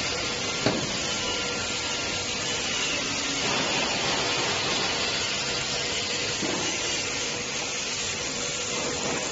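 Disinfection booth's disinfectant spray system hissing steadily, with a single click about a second in.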